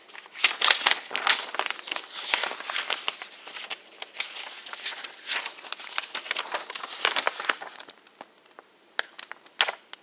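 Paper rustling and crinkling as the pages of a paper assembly instruction booklet are handled and turned. The dense crackle thins out to a few sharp clicks near the end.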